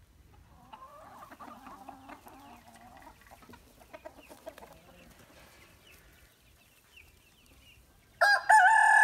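Hens clucking quietly, then near the end a rooster breaks into a loud, long crow.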